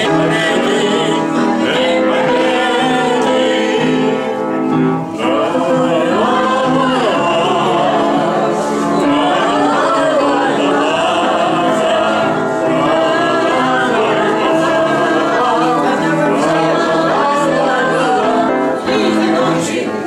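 An elderly man singing a song to upright piano accompaniment.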